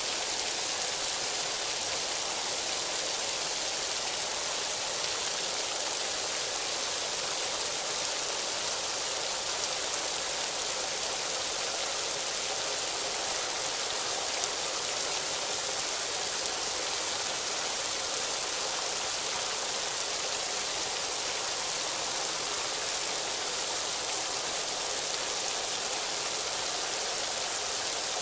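Rain falling steadily on the city, a constant even hiss.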